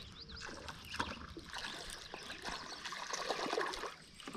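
Faint trickling and light splashing of creek water around a kayak, with small scattered ticks.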